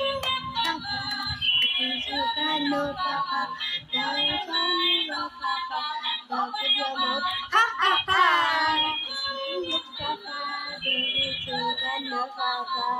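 Electronic musical baby toy playing a tune with a synthesized singing voice, with a run of gliding notes about eight seconds in.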